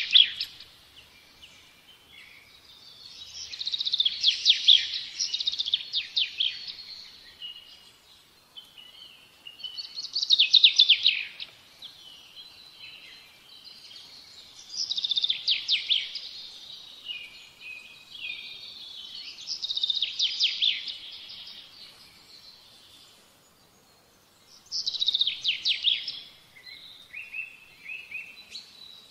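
A songbird singing: repeated phrases of rapid high chirps and trills, each about two seconds long, coming every five seconds or so with short pauses between.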